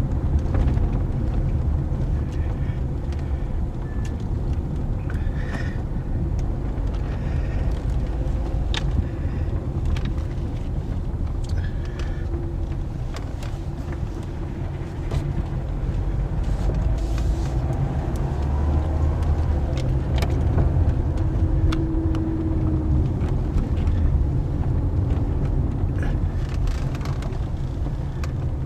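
2009 Toyota Corolla driving at low speed, a steady rumble from the engine and road, with scattered sharp clunks from the front end. The owner believes the clunks come from a worn outer tie rod or ball joint.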